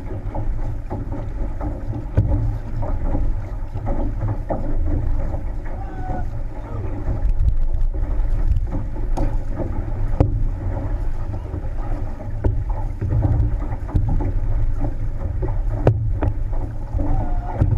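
Wind rumbling on the microphone over water rushing along the hull of a six-person outrigger canoe as the crew paddles, with a few sharp knocks.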